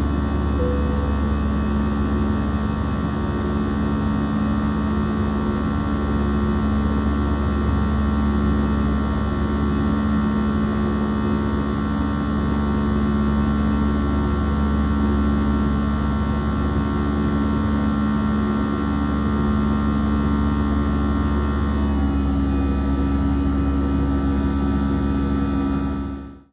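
Airbus A320 cabin noise in the climb after takeoff: a steady drone of engines and airflow with several steady tones running through it. Near the end the tones shift slightly in pitch, and then the sound fades out quickly.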